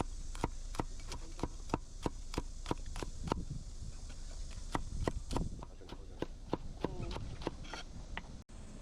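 Kitchen knife chopping on a cutting board: a steady run of sharp strokes, about three a second, pausing briefly near the middle and then resuming.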